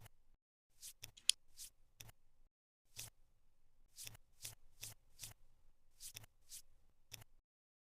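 Cardboard jigsaw puzzle pieces clicking as they are handled and pressed into place: about a dozen short, light clicks at irregular intervals, the sharpest about a second in.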